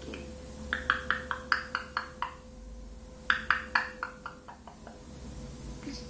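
Two quick runs of sharp clicks, each of about seven strokes at roughly five a second, the first about a second in and the second near the middle.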